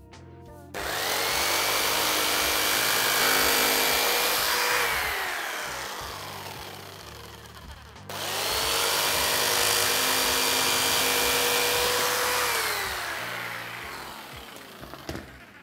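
Corded electric jigsaw cutting a luxury vinyl tile plank in two separate runs: each starts abruptly, runs at steady speed for about four seconds, then winds down with a falling whine. The second run starts about eight seconds in, the two cuts together making a notched corner in the plank.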